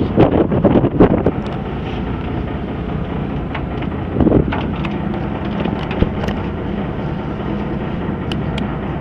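Wind buffeting the microphone for about the first second, then the steady rumble of a fishing boat's engine running, with a faint steady hum and a few light knocks.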